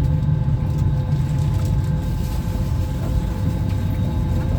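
Steady low rumble of an Airbus A320-200's cabin, engines and air flow, with a few faint steady tones above it.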